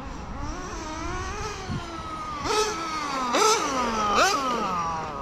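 Small .12 nitro engine of a 1/10 RC touring car revving under throttle, in three sharp rising bursts about a second apart, each falling away again.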